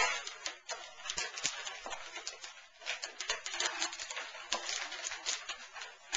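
Gift wrapping paper being handled and pulled at while a present is opened, an irregular run of crackly rustles.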